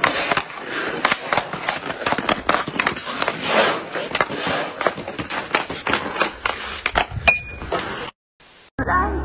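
Ice hockey stick blade clacking on a puck and skates scraping on ice during stickhandling: a quick, uneven run of clicks and scrapes that cuts off about eight seconds in.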